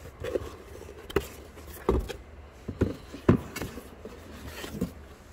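Cardboard packaging and papers being handled inside a shipping box: rustling and scraping with several short knocks, the loudest about two and three seconds in.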